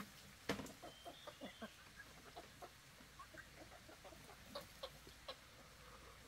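Chickens clucking softly in short, scattered calls, with a sharp click about half a second in and a few fainter ticks.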